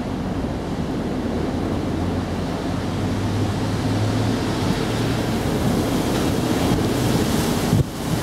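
Steady rushing outdoor background noise, strongest in the low range. Near the end there is a brief sudden dropout and a short knock.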